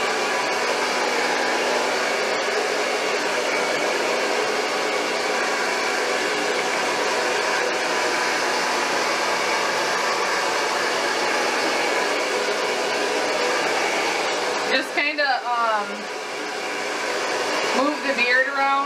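A handheld hair dryer on its low setting, blowing steadily on a dog's beard. About 15 seconds in its sound drops and thins, and a few short voice-like sounds come through.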